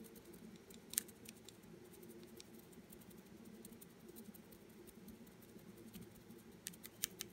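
Faint scratching and light ticks of a stiff brush dry-brushing paint over a plastic miniature, with a sharper click about a second in and a few more near the end, over a low steady hum.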